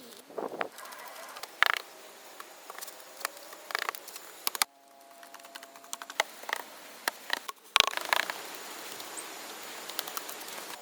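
Irregular knocks and scrapes, some with a short ring, over a steady faint hiss; the sound changes abruptly twice.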